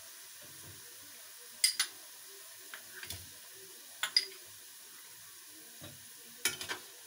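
Chicken and prawns frying in ghee in a metal pan, a faint steady sizzle under a few sharp clinks of utensils against the pan as the prawns go in: one near two seconds in, a pair at about four seconds and another near the end.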